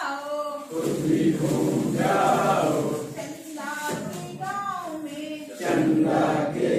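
Call-and-response group song in Hindi: a woman leader sings a line alone, and a large group of adults sings it back together, twice over.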